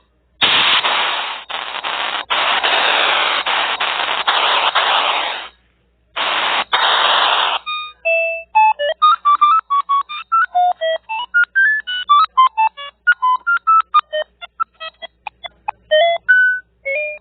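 Electronic sound effects: a long burst of static-like hiss with brief dropouts, a shorter second burst, then a rapid run of short electronic beeps jumping between random pitches.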